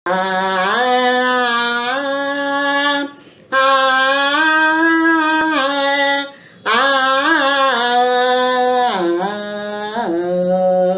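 A woman singing solo and unaccompanied in long, held notes, opening a Marathi devotional song to Ganesha. She sings three phrases, with short breaks about three and six and a half seconds in.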